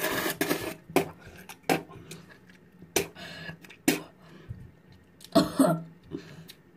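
A boy coughing and gagging on a mouthful of intensely sour candy. There are several short, sharp coughs about a second apart, then a longer, louder coughing fit about five and a half seconds in.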